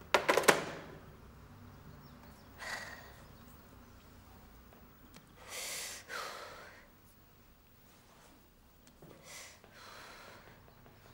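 A brief sharp clatter of clicks at the start, then a woman's breathy sighs and exhales every few seconds, the longest about halfway through.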